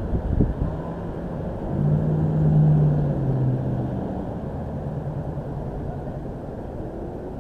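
A low engine hum swells about two seconds in and fades out by about four seconds, over a steady low rumble. A few thumps come right at the start.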